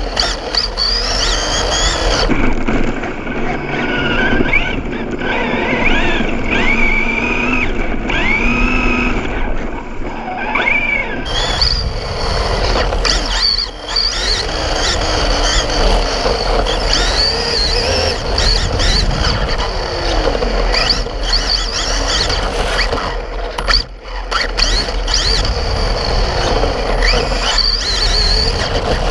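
Radio-controlled buggy driving fast over brick paving, heard from a camera mounted on its chassis: the motor and gears whine in pitches that rise and fall with the throttle, over a steady rumble from the chassis and tyres on the bricks.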